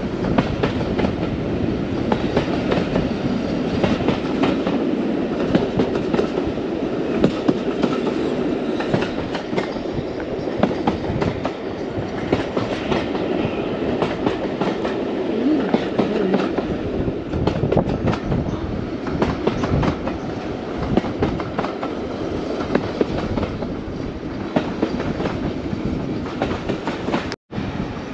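Swanage Railway heritage train running along the line, its wheels clattering over the rail joints above a steady running noise. The sound cuts out for a moment near the end.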